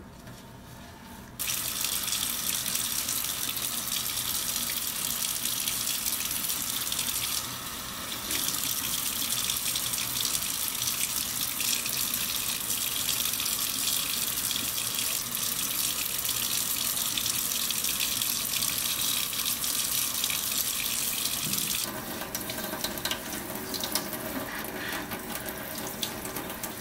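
Water running from a tap into a sink, the steady hiss starting about a second and a half in and easing briefly around eight seconds. For the last few seconds the flow is quieter and more uneven.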